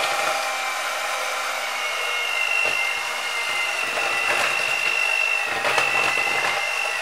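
Electric hand mixer running steadily, its beaters churning through flour in a bowl, with a high motor whine.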